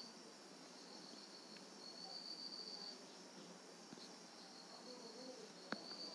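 Faint, high insect trill, a steady note about a second long repeating every few seconds, over quiet room hiss. A single sharp click near the end.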